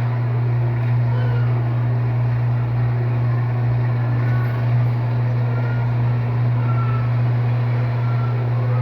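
Electrolux LTD13 13 kg washing machine spinning in its second rinse: a steady low motor hum with an even whir of the drum.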